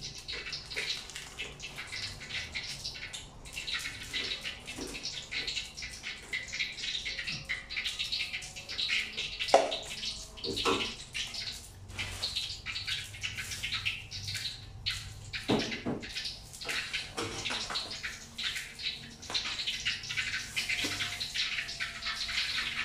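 Cooking oil sizzling in a frying pan, a steady crackling hiss, with a few knocks of bowls or utensils set down on a hard floor around the middle.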